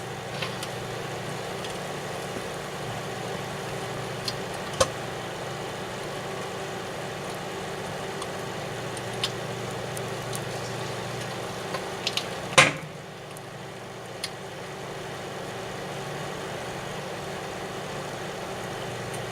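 Daewoo microwave oven running with a steady hum while a GE alarm clock cooks inside it. Scattered sharp pops and cracks come from the clock's electronics, which the owner takes for its capacitors going. The loudest crack comes about twelve seconds in, after which the hum briefly drops.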